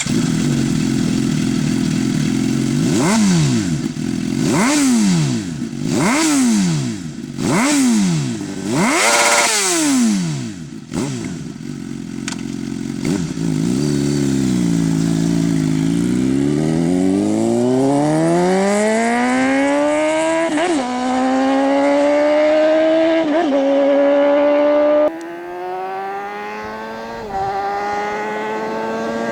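Suzuki GSX-R 750's inline four-cylinder engine through a full aftermarket exhaust system, revved five times in quick succession. It then pulls away in a long rising pull through the gears, the note dipping briefly at each of three upshifts.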